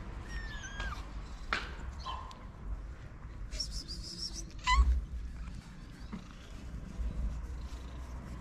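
Stray cats meowing: several short, high mews, the loudest about five seconds in, over a steady low rumble.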